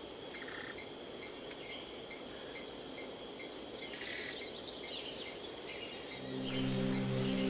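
Night insect chorus: a cricket chirps steadily about twice a second over a continuous high insect buzz. About six seconds in, low sustained music notes come in and become the loudest sound.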